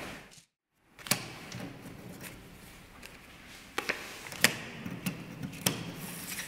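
Playing cards being tapped and laid down on a table: a few sharp, separate taps spread over several seconds against a quiet room background. The sound cuts out briefly near the start.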